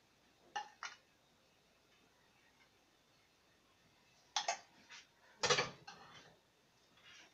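A metal spoon clinking and scraping against a stainless steel cooking pan: two light clinks just after the start, then a cluster of clatters over the second half, the loudest about five and a half seconds in.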